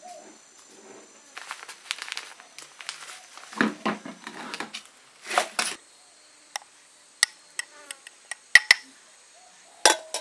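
Food-handling noises: rustly scraping and clattering of kitchen utensils against a bowl, then several sharp single clicks as a glass swing-top jar is handled.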